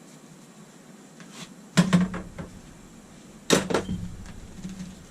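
Two short bursts of hard knocking and clattering, about two seconds in and again a second and a half later, from tools and PEX fittings being handled.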